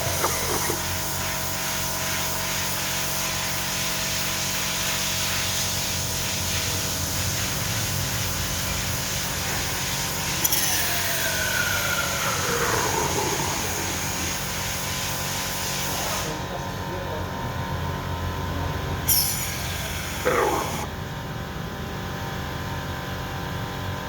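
Toyota Etios Valco engine running during an engine flush (decarbonising treatment), with a steady hiss over it. Twice a tone falls in pitch, slowly about halfway through and more quickly near the end. The hiss cuts off about two-thirds of the way through.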